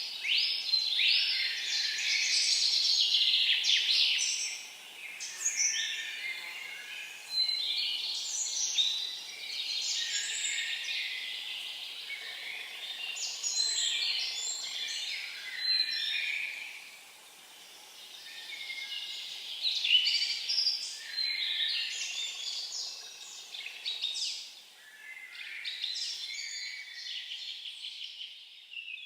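Songbirds singing: run after run of quick chirping phrases with short pauses between them, over faint background noise.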